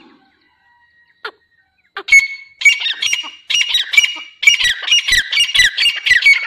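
Dakhni teetar (grey francolin) calling loudly: a rapid series of repeated, pitch-sliding phrases that starts about two seconds in and keeps going.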